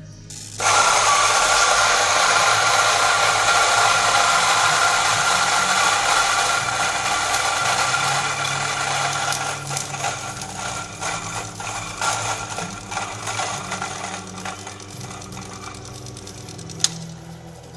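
La San Marco coffee grinder's motor and burrs grinding coffee beans. It starts abruptly about half a second in with a loud, steady grinding, then gradually thins into an uneven crackle, with one sharp click near the end.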